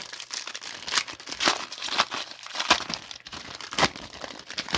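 Crinkly plastic packaging being handled and crumpled: a dense, irregular run of crackles.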